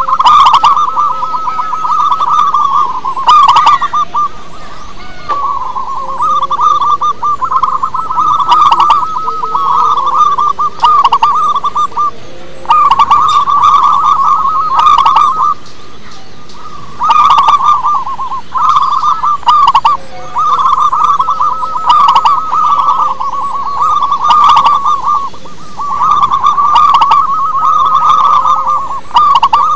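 Zebra dove cooing: repeated phrases of rapid, rolling coo notes, each about two seconds long, with short pauses between.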